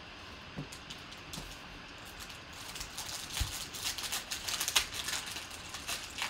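Shiny foil wrapper of a trading-card pack being torn and peeled open by hand. After a few soft taps it becomes a dense run of crinkling and crackling from about two and a half seconds in.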